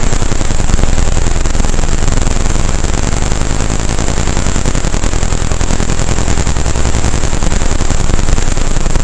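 Roland AIRA Compact S-1 synthesizer playing a loud, harsh noise texture: a dense hiss with a thin steady high whine on top and a low rumble underneath, flickering rapidly and evenly throughout.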